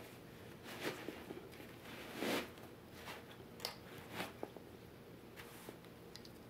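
Faint rustling and scraping of a padded nylon drawstring pouch as a gas canister is pushed down into it and its drawstring cord is handled. The sound comes in several short bursts, the loudest a little after two seconds in, with a few small clicks.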